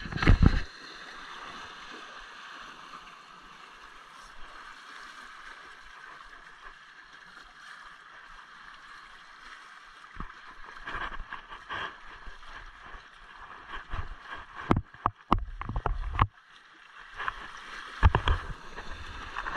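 Water sloshing and lapping against a small fishing boat's hull, a steady wash at first. In the second half it turns choppier, with low bumps and a few sharp knocks against the boat.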